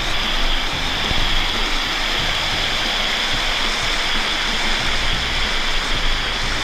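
Steady rushing of a waterfall, a loud, even wash of falling water.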